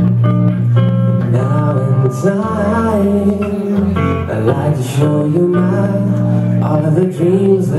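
A guitar played lap-style, laid flat across the knees, its notes and chords ringing on without a break, with a man singing a melody over it in a few phrases.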